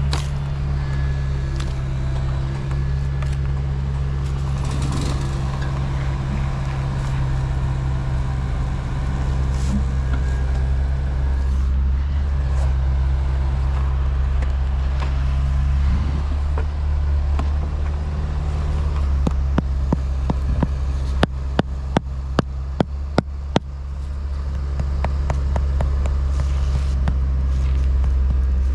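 A motor vehicle's engine running steadily with a deep hum. From about two-thirds of the way in, a run of short, evenly spaced clicks sounds over it, a few to the second.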